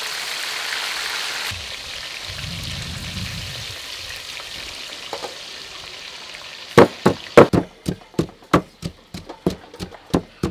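Salmon fins sizzling as they deep-fry in hot oil in a wok, a steady hiss that drops away about a second and a half in. About seven seconds in, a wooden pestle starts pounding in a wooden mortar, about three sharp strikes a second, louder than the frying.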